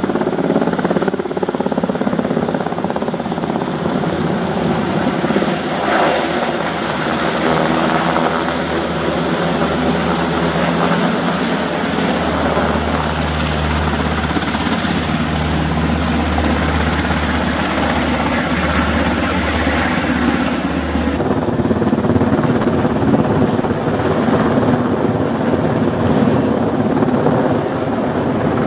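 Black Hawk helicopter's rotors and twin turbine engines running steadily overhead as it carries a slung chairlift tower section on a long line. The sound changes abruptly about two-thirds of the way through.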